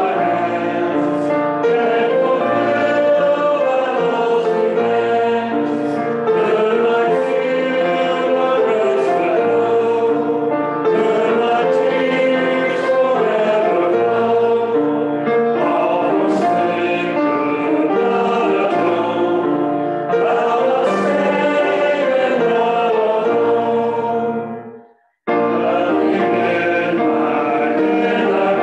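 Several voices singing a hymn with instrumental accompaniment, moving in steady held notes over long low sustained bass notes. Near the end the music fades out quickly to silence and then starts again abruptly.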